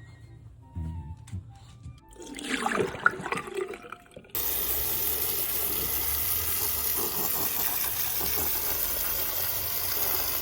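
Water running steadily, like a tap or shower, starting suddenly about four seconds in after a few seconds of irregular splashing or rustling.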